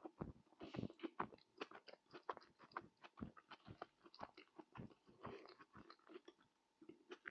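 Close-miked chewing of a Moroccan tajine: a steady run of short wet clicks and soft crunches, several a second.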